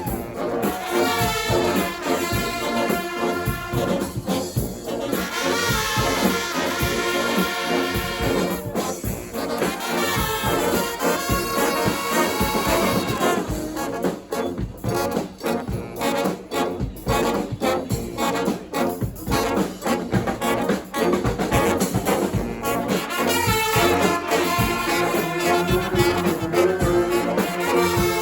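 Live street brass band playing: trumpets and trombones over drums. About halfway through the horns thin out and the drums carry the music for several seconds, then the full horn section comes back in.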